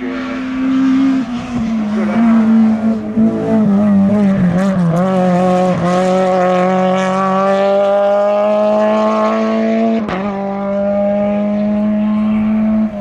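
Race car engine at high revs on a hill-climb run, close by. The engine note wavers through quick gear changes, then climbs steadily before a sharp upshift about ten seconds in, and holds until it fades at the end.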